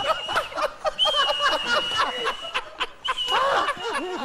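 A high, steady whistle like a kettle coming to the boil sounds on and off, twice for a second or more, over laughter from the studio panel.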